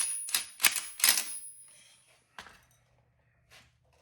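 Cordless impact wrench on the left-hand-threaded front sprocket bolt, fired in about five quick short bursts over the first second, followed by a couple of faint clicks.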